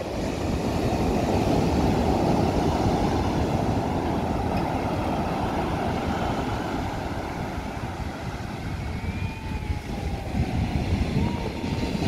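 Rough sea surf: waves breaking and washing up a sand beach in a steady low rumble, swelling in the first two seconds, easing a little past the middle and building again near the end.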